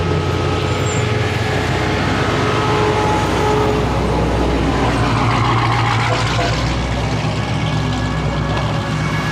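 Race cars' engines running at low speed as the cars roll slowly past one after another at close range, a steady low drone whose pitch shifts as each car goes by.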